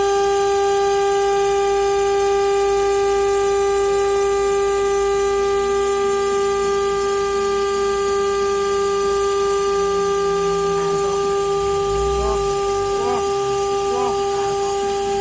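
Spindle of a CNC stone countertop cutting and polishing machine running with a loud, steady whine of one fixed pitch.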